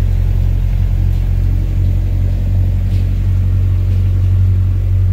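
Vehicle engine running with a steady low rumble, heard from inside the vehicle's cabin while it drives.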